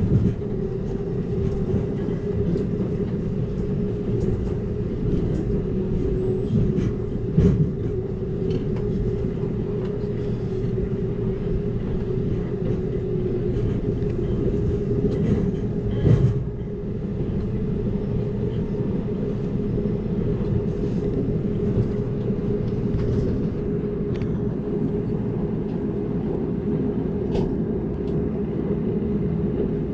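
Amtrak Cascades passenger train running at speed, heard from inside the coach: a steady rumble of wheels on rail with a constant hum. Short knocks stand out about seven seconds in and again about sixteen seconds in.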